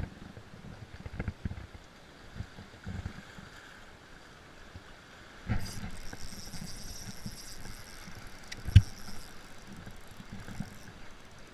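Small waves washing and gurgling against shoreline rocks, with wind buffeting the camera microphone and scattered knocks from handling the rod and spinning reel. About five and a half seconds in a hiss sets in and lasts for several seconds, and a single sharp knock near nine seconds in is the loudest sound.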